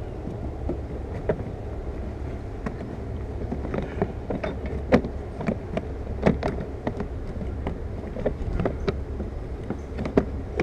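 Scattered plastic clicks and taps as car trim moldings are pressed into place by hand, with one sharper knock about halfway through, over a steady low hum.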